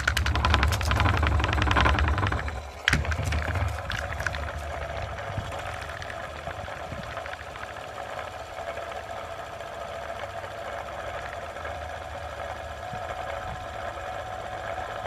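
Brushed DC motor spinning a threaded rod on its shaft, running off a solar panel in weak sun. It runs loud with a fast rattle for the first two to three seconds, then after a click settles into a quieter, steady whir.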